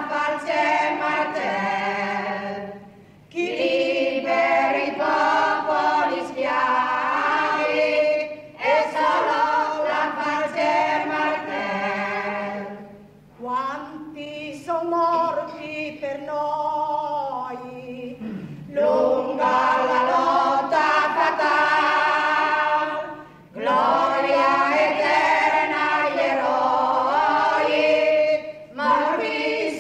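A group of voices singing together without instruments, in long phrases with short pauses between them.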